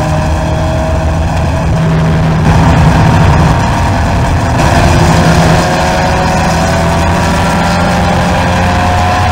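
1965 MGB race car's rebuilt 1798cc four-cylinder engine heard from the cockpit at racing speed, running hard at high revs with its pitch climbing steadily as it accelerates along the track.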